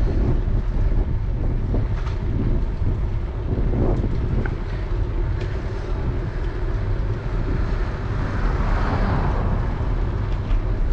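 Wind buffeting the GoPro's microphone on a moving bicycle, a steady low rumble with a few small clicks and rattles; a louder hiss swells about eight seconds in.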